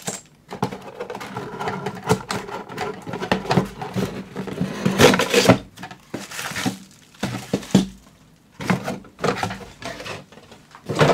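Plastic bags and bubble wrap holding kit parts crinkling and rustling as they are lifted out of a cardboard box, with irregular light knocks as the pieces are set down.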